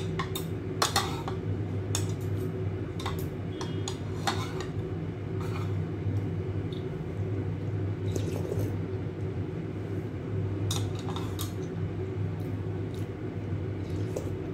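Metal spoon and chopsticks clinking and scraping against a ceramic soup bowl at irregular intervals while eating noodle soup, over a steady low hum.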